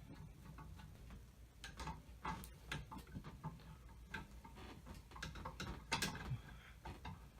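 Light, irregular clicks and taps of hand work, with screws and metal parts being handled, while ceiling fan blades are fitted.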